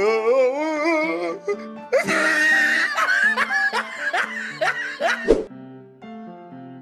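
Comedy edit soundtrack: warbling, laughing sound effects over music, a single sharp bang about five seconds in, then the sound cuts abruptly to a plain, quieter tune.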